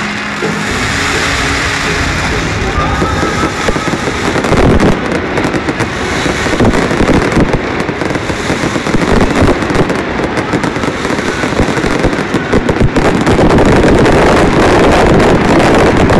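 Fireworks finale: aerial shells and fountains bursting and crackling in a dense, rapid, overlapping barrage that grows louder about four seconds in. Music from the stadium speakers fades under it in the first seconds.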